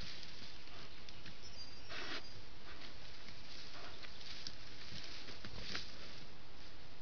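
Leaves and branches rustling in three short bursts as a young sambar stag rears up on its hind legs into a tree, over a steady hiss.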